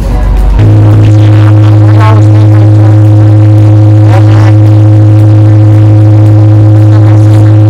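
Loud, steady, low-pitched drone from a tour boat, starting abruptly about half a second in and holding at one unchanging pitch, with faint voices beneath it.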